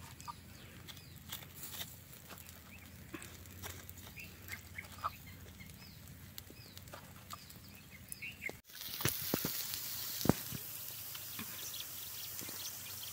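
Chicken sizzling over a charcoal fire with scattered crackles, and birds chirping in the background. About two-thirds of the way through, a steadier, louder hiss comes up with a few sharp snaps.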